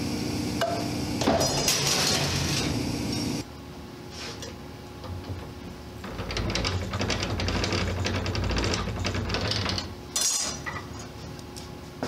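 Hammering on metal: runs of rapid, closely spaced metallic strikes that break off abruptly twice.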